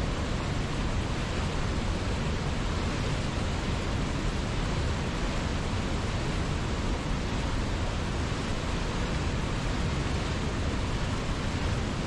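Mountain river rushing over a cascade and boulder rapids: a steady, even sound of white water with no change in level.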